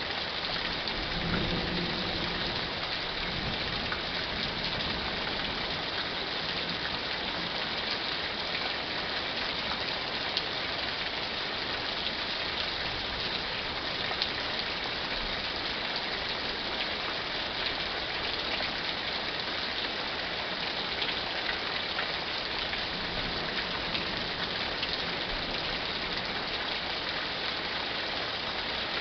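Steady rain falling in a thunderstorm, an even hiss of drops. A brief low rumble comes about a second in.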